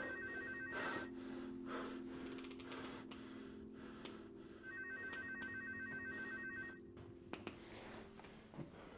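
A telephone ringing with a rapidly pulsing electronic trill, heard as two rings about two seconds long each: one ending about a second in, the next starting about four and a half seconds in. A low steady hum sits underneath.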